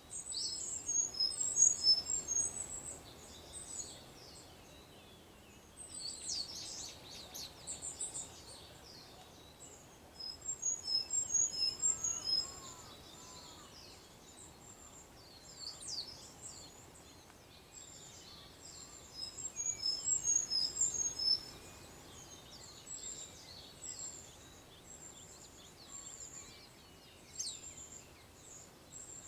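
Small songbirds singing at dawn: three bursts of rapid, high-pitched chirping phrases about ten seconds apart, with scattered single chirps between them, over a faint steady outdoor background noise.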